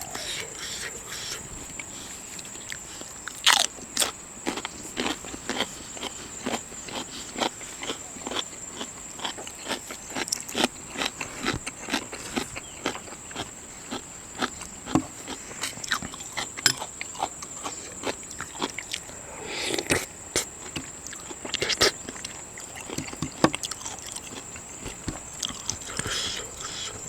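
Eating sounds from a seafood meal: chewing and lip smacks with irregular clicks and small cracks, a few of them louder, over a steady high-pitched whine.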